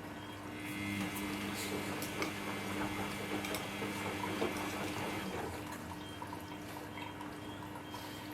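Samsung EcoBubble front-load washing machine filling with water at the start of a cotton cycle with bubble soak: water running into the machine over a low steady hum. It is louder from about a second in until about five seconds, then lighter dripping.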